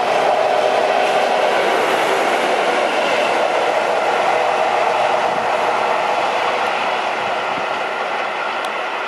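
NEWAG 6Dg diesel locomotive running light, its Caterpillar diesel engine droning steadily with some rail clatter as it passes close by. The sound fades gradually in the last few seconds as the locomotive draws away.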